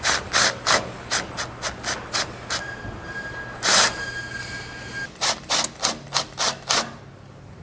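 Cordless power tool with a 9/16 socket backing the nut off the bottom of a sway bar end link. A run of sharp clicks, about three a second, gives way to a steady high whine with one loud burst in the middle. Another run of clicks follows.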